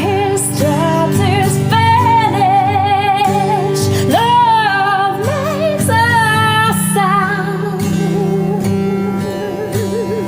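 A woman singing a slow Christian worship song with a wavering vibrato over acoustic guitar.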